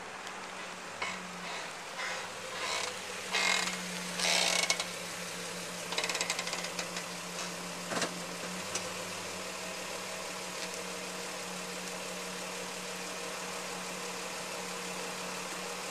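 Car brakes making a run of short harsh scraping noises, about ten over the first eight seconds, the last ending in a sharp click, over a steady low hum. It is a recurring brake noise that greased and replaced bushings, new pads and turned rotors have not cured.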